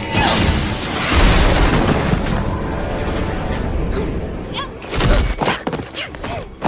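Loud cartoon action sound effects over score music: a dense rushing noise, then a heavy impact about five seconds in, and the sound drops away suddenly at the end.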